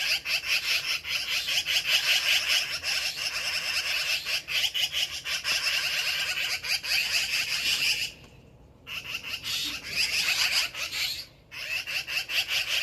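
Black-billed magpies chattering in harsh, rapid rattling calls, alarm scolding at a cat that has caught a bird. The chatter is nearly continuous, with a pause of about a second partway through and a shorter break later.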